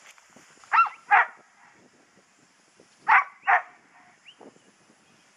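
A working cattle dog barking: two sharp barks about a second in, then two more about three seconds in.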